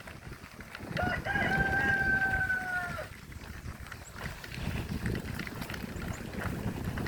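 A rooster crowing once: a couple of short notes, then a long held note of about two seconds that falls slightly and cuts off suddenly. Low rumble of wind on the microphone runs underneath.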